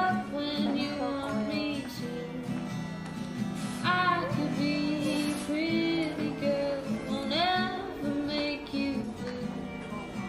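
Background music: a woman singing over acoustic guitar.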